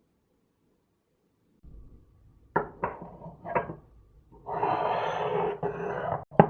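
Household handling sounds: three sharp knocks of objects on a hard surface, then a steady noisy stretch lasting under two seconds, then two more sharp knocks near the end.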